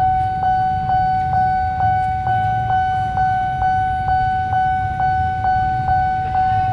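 Railway level-crossing warning bell ringing, a repeating electronic ding about twice a second, over a low rumble.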